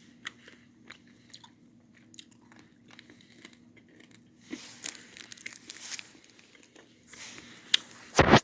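Close-up chewing of a Double Bubble gumball: scattered wet mouth clicks and crunching as the candy shell breaks, with a loud sharp noise near the end.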